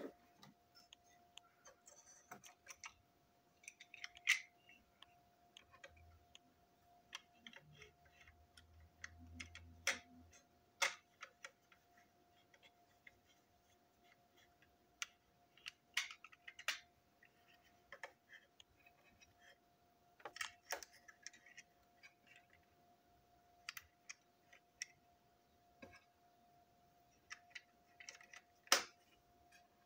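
Small plastic toy brake van parts clicking and tapping as they are handled and pressed together on a tabletop: irregular light clicks, a few sharper ones, over a faint steady hum.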